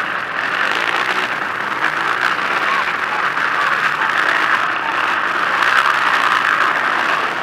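A pack of racing quad (ATV) engines running hard together in an indoor arena, heard as a dense, steady din with no let-up.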